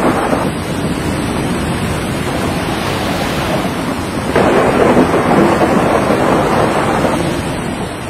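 Heavy storm surf breaking against a sea wall: a continuous loud rush of crashing waves and spray. It gets suddenly louder about halfway through and eases off near the end.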